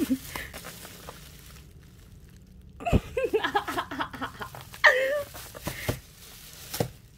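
Plastic bubble wrap rustling and crinkling as it is pulled apart by hand. About three seconds in there is a short burst of playful, sing-song vocal noises, up and down in pitch.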